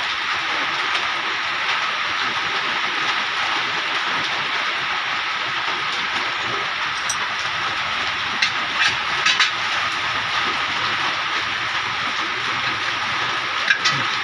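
Steady background hiss, with a few light metallic clicks of a wrench working at the tie rod end on the steering knuckle: a cluster about eight to nine seconds in and one more near the end.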